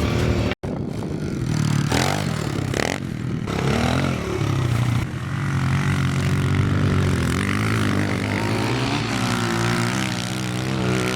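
An engine running with a steady drone, its pitch wavering up and down near the end. The sound cuts out abruptly for an instant about half a second in.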